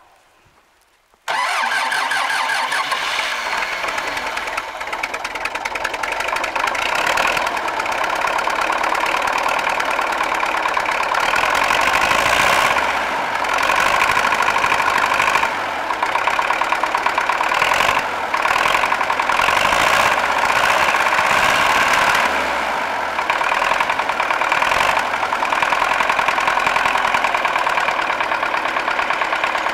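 MTZ-80 Belarus tractor's D-240 four-cylinder diesel starting abruptly about a second in and then running steadily. Freshly back from a fuel injection pump overhaul, it knocks and runs rough at idle, according to the owner, though it runs evenly at full throttle under load.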